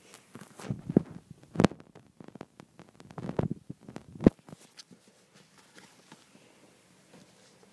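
Irregular thumps and scuffling from a ferret and a cat tussling. The sharpest knocks come about one and a half seconds in and about four seconds in, then it dies away to quiet.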